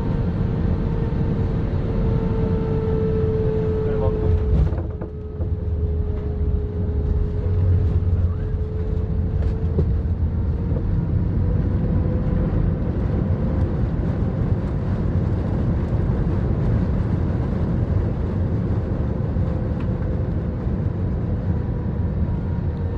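Airliner cabin noise during landing: the jet engines run with a steady hum and a held fan tone, and the cabin rumbles. A sharp jolt comes about four and a half seconds in as the wheels touch down. The low rumble then swells a few seconds later as the plane rolls and slows on the runway.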